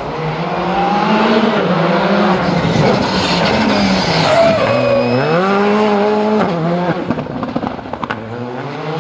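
Škoda Fabia rally car's turbocharged four-cylinder engine revving hard through a tight corner. The pitch climbs, dips and climbs again with throttle and gear changes, drops away abruptly about six and a half seconds in, then rises again near the end.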